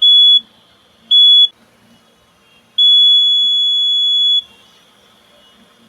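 Alarm buzzer of a homemade laser security alarm sounding a steady high-pitched tone: two short beeps about a second apart, then one long beep of about a second and a half.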